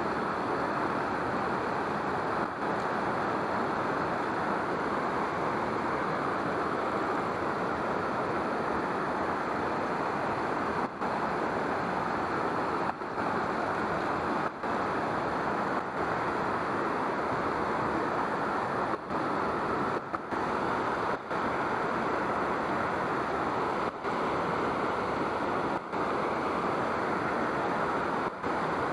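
Steady rushing of running water, with brief dips in level now and then.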